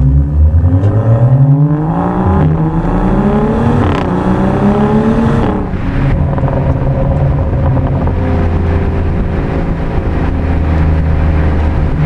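Tuned BMW 335i (F30) turbocharged straight-six accelerating hard: the revs climb, drop at an upshift about two and a half seconds in, and climb again. About five and a half seconds in the pitch falls and the engine settles to a steady cruise.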